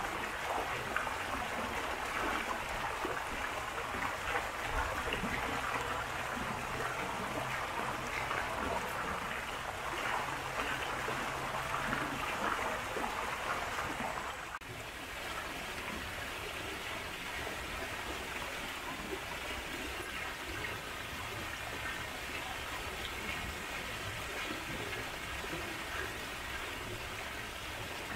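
Running water splashing and rushing steadily, as from a garden fountain or stream, becoming slightly quieter about halfway through.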